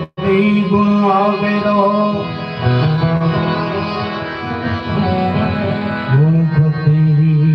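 Devotional bhajan music: a harmonium holds sustained notes while a plucked string instrument plays the melody. The sound drops out for an instant right at the start.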